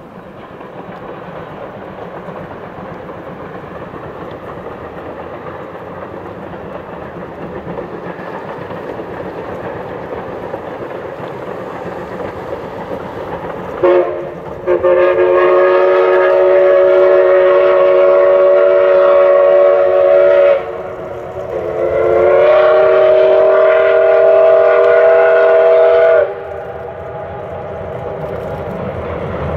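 Double-headed C11 and C10 steam locomotives approaching, their running noise slowly growing louder. About halfway through the steam whistle gives a short toot, then two long chord-like blasts of about six and five seconds with a brief gap between.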